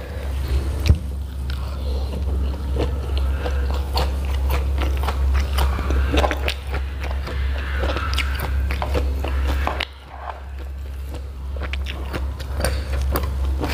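Close-miked chewing of a mouthful of food, with frequent wet mouth clicks and smacks, over a steady low hum.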